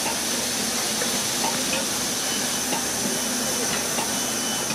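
Steam hissing steadily from the standing Royal Scot-class steam locomotive 46100.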